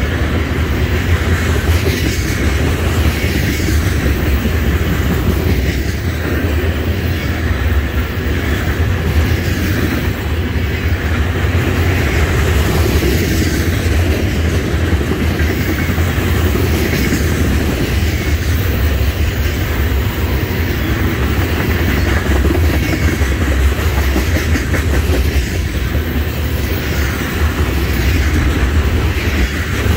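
Black tank cars of a freight oil train rolling past, a steady loud noise of steel wheels running on the rails.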